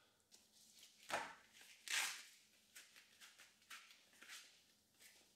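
Quiet handling sounds from a gloved hand: two short swishes about one and two seconds in, the second the loudest, then a few soft light taps.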